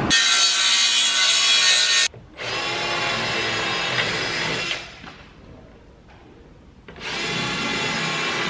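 Cordless drill boring pre-drill holes through a plywood floor panel, running in bursts of two or three seconds with short breaks between them.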